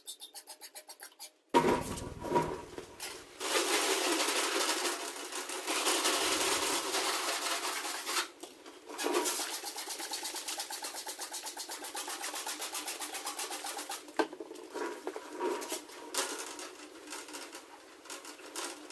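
Hand scrubbing of a fire-damaged Snap-on toolbox's painted steel surface with a cleaning pad, a scratchy rubbing in quick back-and-forth strokes with a few short pauses.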